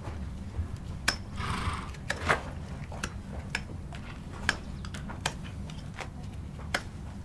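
Sharp metal clicks and taps, about one a second, from hoof-trimming tools worked on a horse's bare hoof, with a short scrape about a second and a half in.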